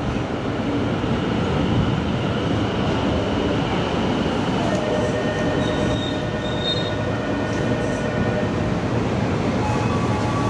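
Electric train running on the rails: a steady rumble, with thin high-pitched whines coming in around the middle of the sound and fading out a few seconds later.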